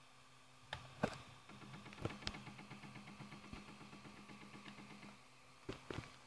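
Flashforge Creator 3D printer's stepper motor running for about three and a half seconds, a steady hum with fast regular ticking, with a few mechanical clicks before and after.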